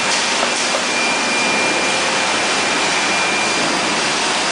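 Steady, loud rushing noise of a radiator brass tank soldering line running, with a faint high whine through the middle.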